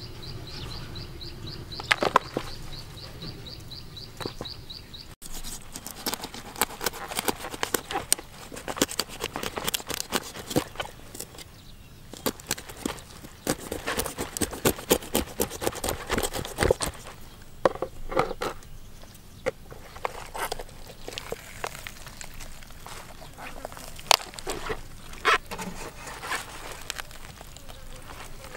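A knife slitting open a plucked poultry carcass and hands pulling it apart in a plastic basin: a dense run of small clicks and crackles that thins out toward the end. A high, rapid, even chirping is heard in the first few seconds.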